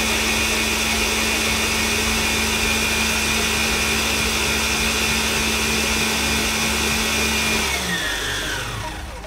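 Electric mixer whipping cream, its motor whining steadily at one speed, then switched off about eight seconds in, the whine falling in pitch as the beaters spin down. The cream has reached soft peaks.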